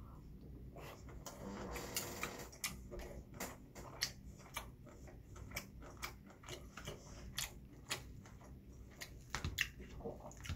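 Close-up eating sounds: a person chewing a mouthful of chicken breast and black rice, with many irregular sharp clicks from the mouth and from metal chopsticks and a spoon against the food bowls.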